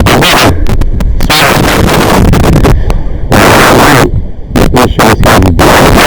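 Loud, distorted crackling interference on the recording, near full scale, cutting in and out with sharp crackles and short dropouts.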